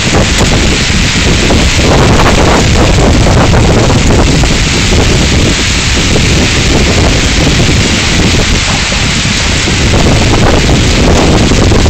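Severe storm wind blasting and buffeting a phone's microphone, over a steady loud rush of heavy rain and hail coming down.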